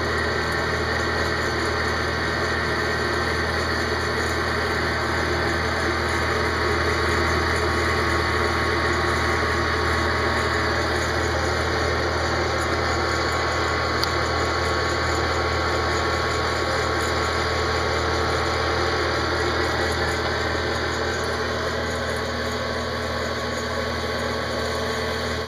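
Popcorn Pumper hot air popcorn popper running steadily, roasting a batch of coffee beans: the fan motor's whir with a low hum.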